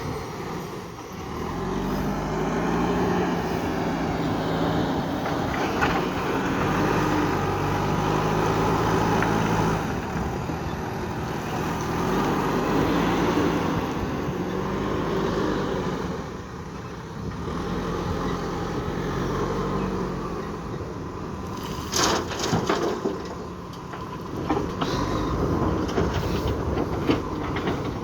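JCB 3DX backhoe loader's diesel engine running and revving up and easing off in repeated cycles as it works its hydraulics to dig and load gravel. Sharp knocks and rattles come in the last few seconds.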